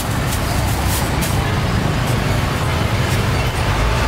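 Road traffic: a steady low engine rumble with road noise, and a few sharp clicks in the first second and a half.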